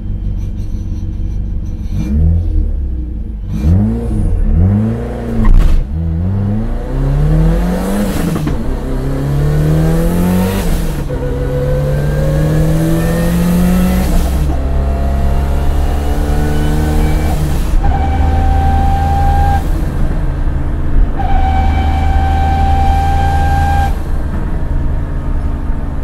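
Toyota AE86's four-cylinder engine, loud from inside the cabin: a few quick rises and falls in revs, then revving up through the gears in several long climbs, each ended by a gear change, settling to a steadier note near the end.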